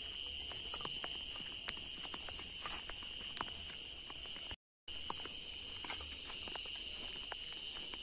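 Footsteps of people walking in flip-flops on a dry dirt and grass path, light irregular clicks and scuffs, over a steady high drone of night insects. The sound cuts out for a moment a little past halfway.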